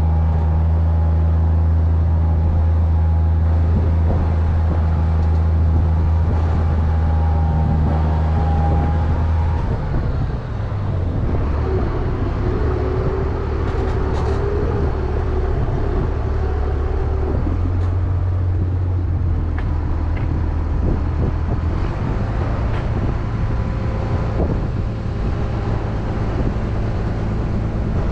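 Mini excavator's diesel engine running under load while it digs. The engine note changes about ten seconds in, and a wavering whine rises over it for several seconds in the middle, with scattered light knocks.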